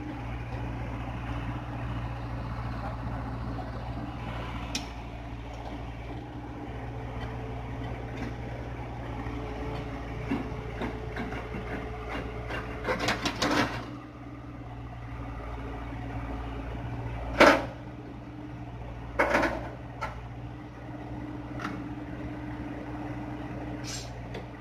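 Hyundai excavator's diesel engine running steadily, with a faint steady whine above it. Sharp knocks and clanks come through, a cluster about halfway through and the loudest single knock a few seconds after that.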